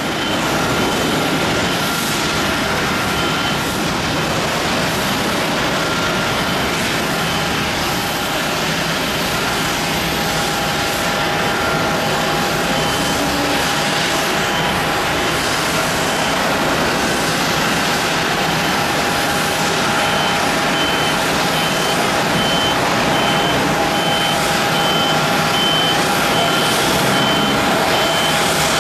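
Airbus A380's four Rolls-Royce Trent 900 jet engines on final approach with the landing gear down: a steady roar with whining tones, growing slightly louder as the aircraft nears. A high beep repeats in the background, most regularly near the end.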